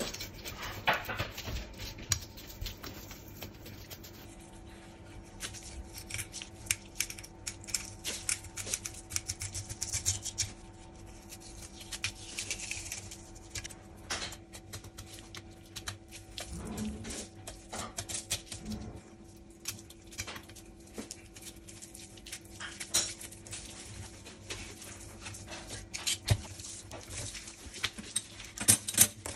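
Kitchen knife filleting a whole mulloway on a plastic cutting board: irregular scraping and crackling strokes as the blade slices through the scaly skin and flesh, with sharp clicks where it meets bone or taps the board. A faint steady hum runs underneath.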